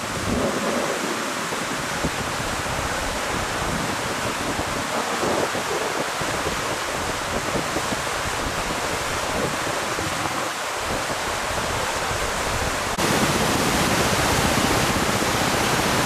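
A stream swollen into a muddy flood by heavy rain, its water rushing steadily. The rushing gets suddenly louder about thirteen seconds in.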